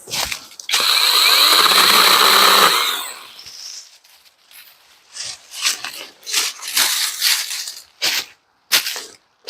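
Imoum Live battery-powered mini chainsaw running for about two seconds, with a steady high whine, then spinning down. A series of short, separate rustles follows.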